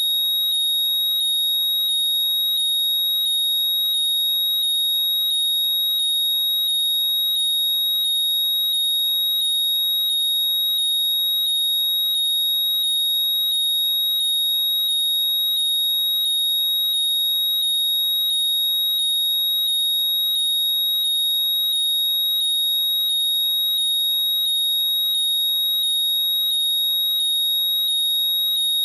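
AirPods 'Find My' locating sound playing loudly: a short series of rising chirps repeating about one and a half times a second over a steady high tone.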